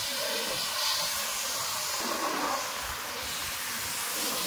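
High-pressure car-wash spray gun jetting water onto a car's roof and windows: a steady hiss of spray.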